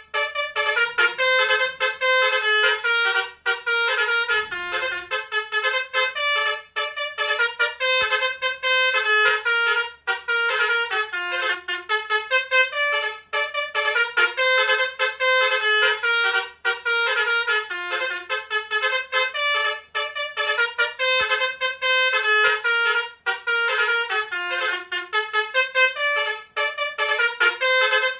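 Basuri multi-tone 'telolet' bus horn playing fast melodic tunes, its notes changing several times a second with only brief breaks.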